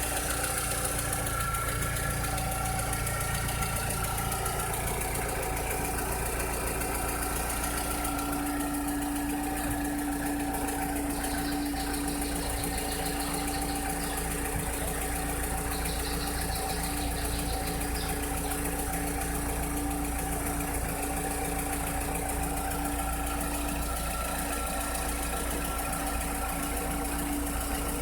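Volkswagen SpaceFox 1.6 flex engine running steadily at idle with a constant tone, making a noise the owner calls strange.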